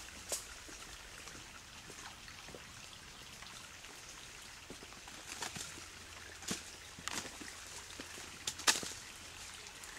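Light rain falling through woodland, a steady soft hiss, with a few sharp taps and rustles in the second half, the loudest near the end.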